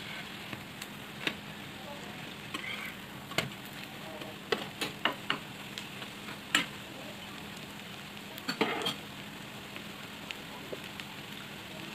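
Hash browns sizzling steadily in oil in a frying pan, with a metal spatula clicking and scraping against the pan a dozen or so times, most thickly through the middle.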